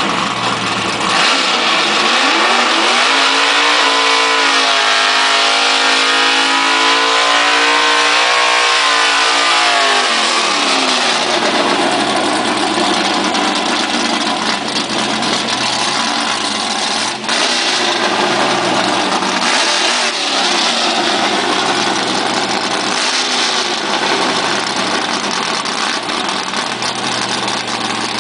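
A race car's 380-cubic-inch small-block V8 revs up about a second in and is held at high revs for about eight seconds. It then drops back to idle, with a few short throttle blips.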